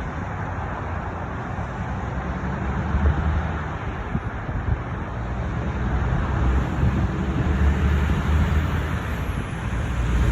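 Road traffic going by: a steady noise of car tyres and engines with a low rumble, growing louder in the second half.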